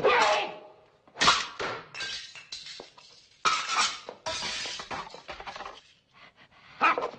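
Glass shattering and crashing twice, each crash followed by a long trail of tinkling shards. A man shouts at the start and again near the end.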